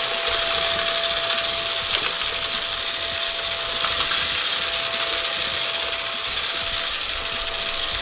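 Moosoo K17 cordless stick vacuum running on its lowest power setting: a steady motor whine over an airy hiss, with faint ticks of granola and sugar being sucked up from carpet.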